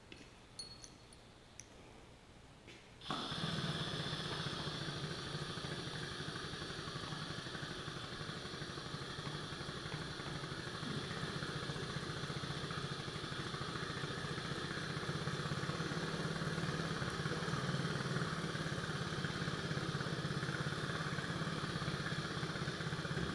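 John Deere 120 excavator's diesel engine comes on suddenly about three seconds in and runs steadily, while the boom cylinder is moved on hydraulics.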